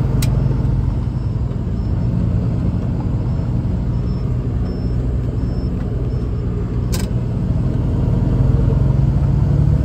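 Loaded log truck's diesel engine pulling away under load, a steady low drone that grows a little louder near the end. Two sharp clicks sound over it, one just after the start and one about seven seconds in.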